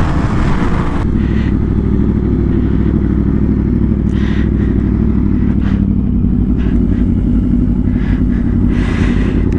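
Sport bike engine with wind rushing over the microphone while riding, cut off abruptly about a second in. After that the engine idles steadily at a stop.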